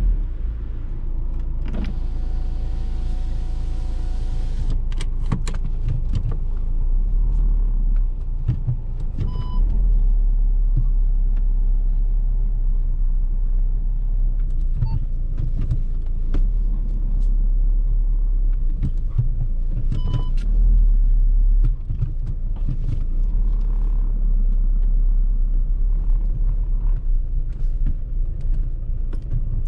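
Škoda Octavia's 1.9 TDI pumpe-düse inline-four turbodiesel idling with a steady low rumble, with scattered clicks, a short whir a couple of seconds in, and two short beeps about ten seconds apart.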